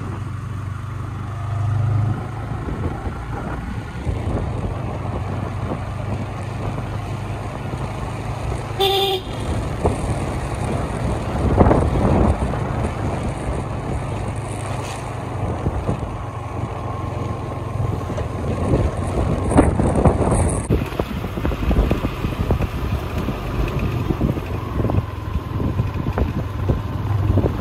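Motor vehicle engine running steadily under wind rush, with one short horn beep about nine seconds in.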